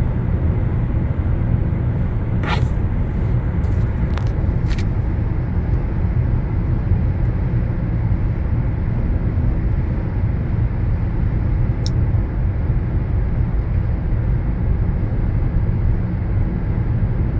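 Steady low rumble of a car driving along a road: tyre and engine noise. A few short clicks come in the first five seconds and one more about twelve seconds in.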